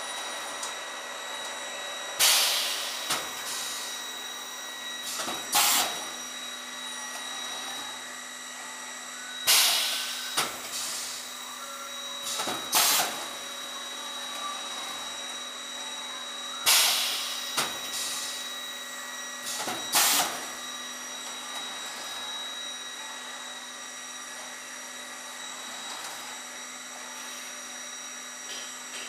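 Rotopack Futura automatic tray sealer running with a steady machine hum, going through three sealing cycles about seven seconds apart. Each cycle is a loud burst of hissing air followed about three seconds later by a shorter one. Only the hum remains for the last several seconds.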